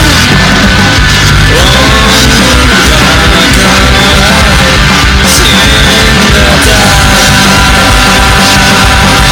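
Loud, distorted rock music in a punk style, a full band playing steadily with a wavering pitched line over it.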